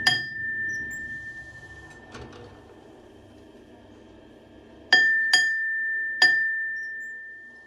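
Metal struck sharply several times, each blow leaving a clear ringing tone that dies away over a couple of seconds: two blows at the start, then three more after about five seconds.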